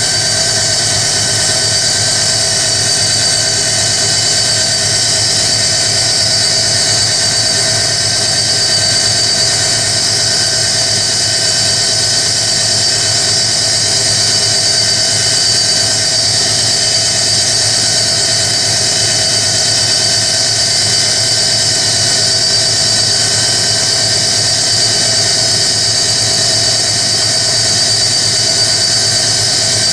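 Hoover Electronic A3172 washing machine spinning at speed: its drive motor runs with a steady, even whine over a low hum.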